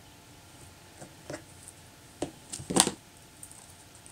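A few light clicks and taps from hands handling rubber-stamping tools (a clear stamp, acrylic block and ink pad), with the loudest cluster a little under three seconds in.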